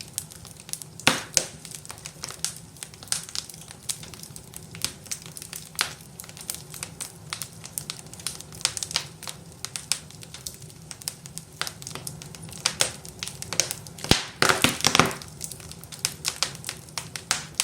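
Wood fire crackling, with irregular sharp pops and snaps and a denser flurry of crackles about fourteen seconds in.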